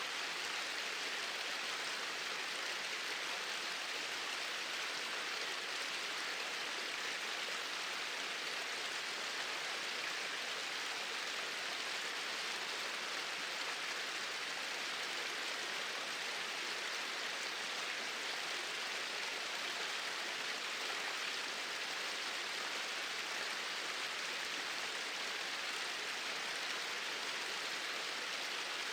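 Small waterfall splashing and rushing in a steady, even hiss, with no change in level.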